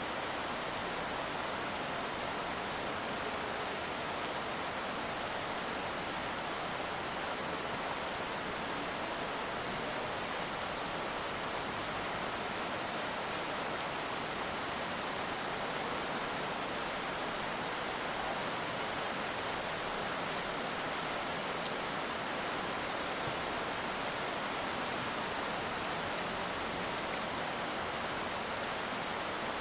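Heavy rain falling steadily, a dense even hiss of many drops on a surface.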